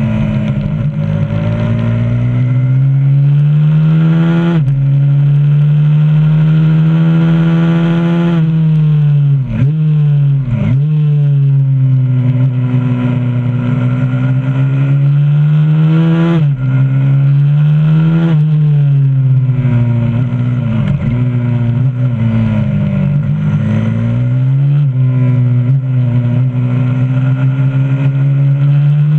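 125cc supermoto pit bike's single-cylinder four-stroke engine at full throttle around a lap, heard from on board: the pitch climbs through each gear and drops quickly at each upshift. Twice it falls away in a run of quick downshifts into a corner before climbing again.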